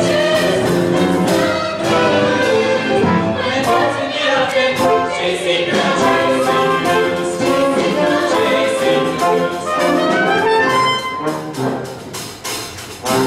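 Live pit orchestra playing an instrumental stretch of a musical-theatre number, with trumpets and trombones prominent; the music thins and drops in level near the end.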